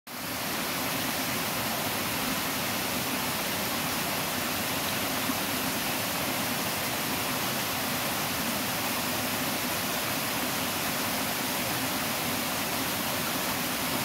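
Small waterfall cascading over rocks into a pool: a steady, even rush of falling water.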